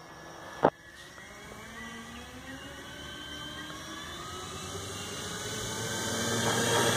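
Propellers and motors of a four-engined radio-controlled model C-130 Hercules running up and accelerating down the runway on its takeoff roll, a whirring whine that grows steadily louder as it approaches. A sharp click about half a second in.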